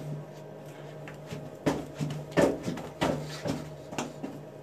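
Low steady hum with a run of about six sharp knocks and clatters from about a third of the way in, the loudest one near the middle.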